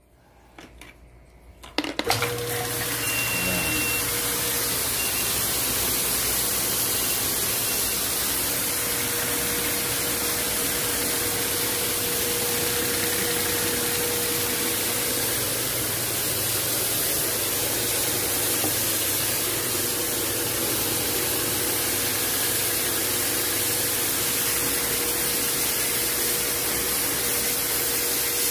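Electric pressure washer of a coin-operated car wash machine switching on about two seconds in and then running steadily, a low hum under the hiss of water jetting from the spray lance.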